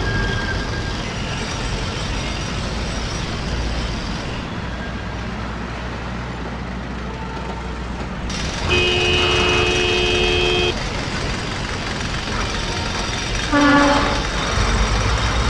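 Street traffic noise, with a vehicle horn held for about two seconds midway and a short toot near the end.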